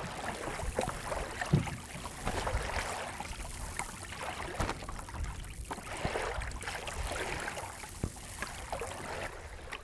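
Water lapping and trickling along the hull of a small wooden sailing dinghy moving slowly under sail, with a few faint knocks.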